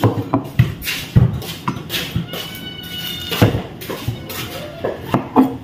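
Kitchen clatter: a knife and utensils knocking and clicking irregularly on a board and dishes while bananas are cut. A short, high-pitched call sounds about two and a half seconds in.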